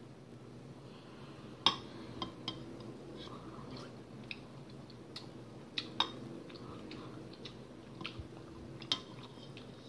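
Metal spoon clinking against a ceramic soup bowl as soup is scooped up and eaten: about ten sharp, irregular clinks, with quiet eating sounds in between.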